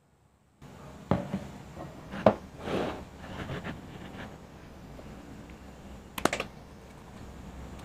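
Kitchen handling sounds: bowls knocked and set down on a wooden table, and liquid, then powdered sugar, tipped from a ceramic bowl into a plastic mixing bowl. There are a few sharp knocks in the first half and a quick run of light clinks about six seconds in.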